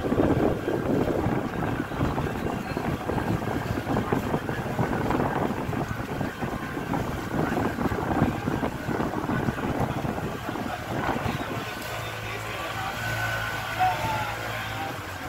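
Wind buffeting the microphone aboard a moving river tour boat, with the boat's engine running underneath. About twelve seconds in the wind drops, leaving the engine's steady low hum and faint voices.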